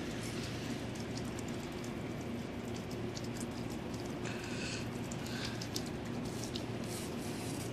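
Steady outdoor background hiss with a low hum underneath and many faint, scattered ticks, like light patter.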